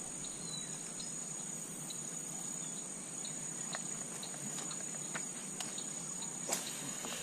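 Insects chirring in a steady, high-pitched chorus, with a few faint clicks and one sharper tick near the end.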